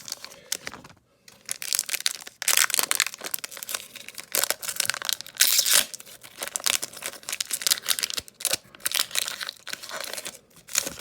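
A foil Pokémon booster pack wrapper being crinkled and torn open, in irregular bursts of crackling.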